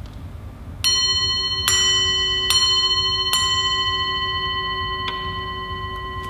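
Small metal bowl bell on a Shinto shrine shelf struck four times, about a second apart, then once more lightly near the end. The tone rings on and slowly fades. It is rung as part of a traditional closing Shinto salute.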